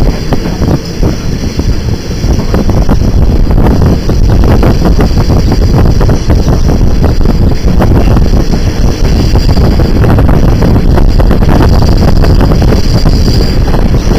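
Wind buffeting a microphone held at the open window of a moving passenger train, over the rumble and clatter of the carriage's wheels on the rails. It grows louder about two or three seconds in.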